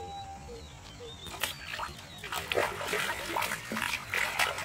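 A hooked fish thrashing at the surface of shallow canal water: irregular splashing that starts about a second and a half in and grows busier.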